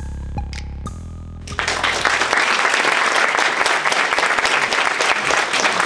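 Electronic music with a deep bass pulse and drum hits, cut off about a second and a half in, followed by an audience applauding steadily.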